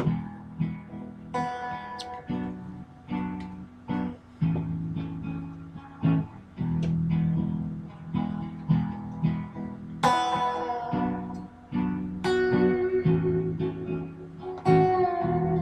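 Fender Stratocaster electric guitar picked through an amp, playing a melodic run of single notes and low repeated notes, with a wavering, vibrato note near the end.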